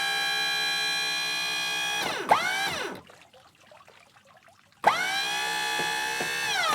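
Hydraulic boat lift's pump motor running with a steady whine, winding down in pitch and stopping about two seconds in. After a short pause it starts again, its pitch rising quickly to a steady whine that drops lower near the end.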